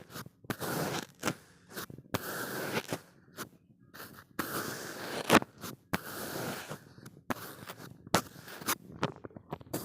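Kinetic sand crunching and scraping as it is cut or pressed, in short passes of about a second separated by pauses, with sharp clicks among them.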